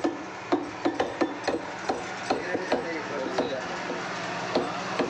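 Butcher's cleaver chopping mutton on a wooden tree-stump chopping block: quick strokes about three a second, thinning to a few spaced chops in the second half.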